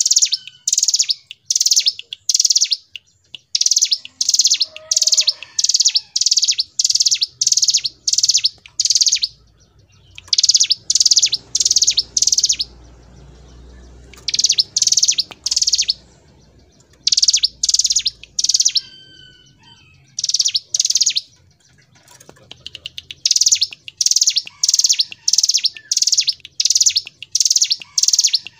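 Hill prinia (ciblek gunung) singing its 'ngebren' song: a loud, high, evenly paced series of notes at about two a second, in long runs broken by a few short pauses.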